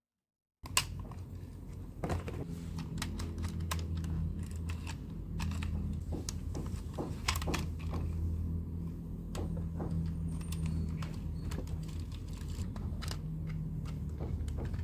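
Small parts of a die-cast toy car being handled and fitted by hand, with irregular sharp clicks and taps of plastic and metal pieces, over a steady low hum. The sound begins suddenly under a second in.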